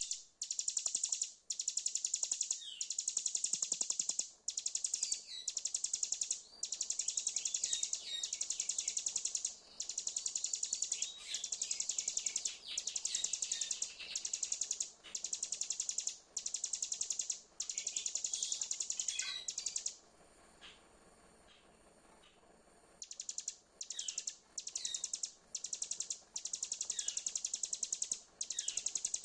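Ciblek gunung (mountain prinia) song: high, rapid buzzing trill phrases about a second long, repeated with short breaks and mixed with quick sweeping chirps, with a quieter pause about twenty seconds in. It is a lure recording used to trigger a silent caged ciblek into song.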